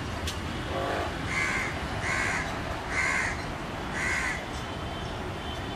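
A crow cawing four times, about a second apart, over steady street noise.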